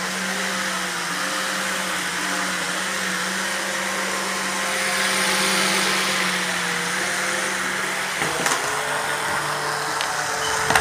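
Air Hogs remote-control flying toy's small electric fan motors whirring steadily as it hovers low over the floor. The pitch steps down slightly about eight seconds in, with a light knock just after.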